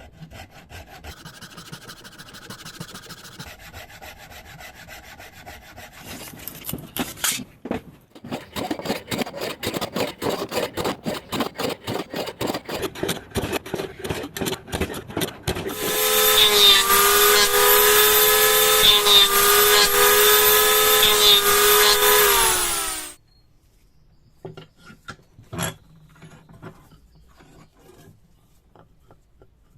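Wood being worked by hand with quick, even back-and-forth strokes, like a rasp or file on a handle. Then an electric power tool runs with a steady whine for about seven seconds, the loudest part, and winds down in pitch as it is switched off.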